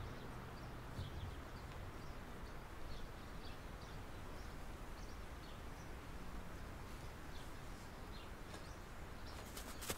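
Woodland ambience: a steady outdoor hiss with small birds chirping now and then throughout. A few sharp knocks sound near the end.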